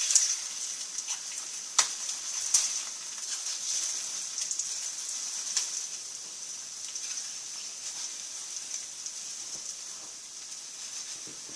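Egg frying in oil in a frying pan, a steady sizzle with a few sharp clicks in the first half.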